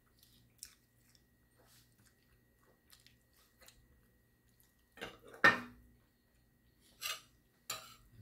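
A metal knife and fork clinking against a dinner plate. Faint scattered ticks come first, then a loud clatter about five and a half seconds in, and two sharper clinks near the end.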